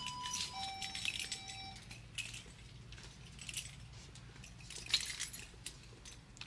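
Electronic door entry chime playing a descending two-note ding-dong at the start, followed by scattered light clinks and jingles.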